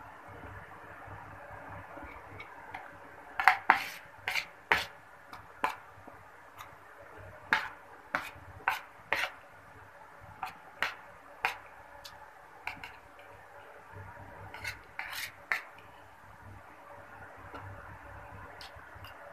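Metal spoon clinking and scraping on a ceramic plate while eating: a run of sharp, irregular clicks that starts a few seconds in and stops a few seconds before the end.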